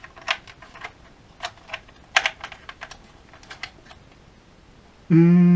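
Irregular light clicks and taps of hard plastic as a DJI Phantom quadcopter's body is turned over in the hand. Near the end a loud voice sets in.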